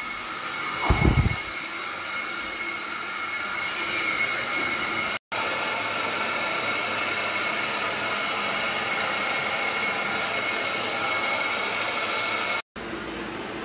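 Carpet-cleaning extraction vacuum running steadily, an airy hiss with a high steady whine. A short low thud about a second in, and the sound cuts out briefly twice.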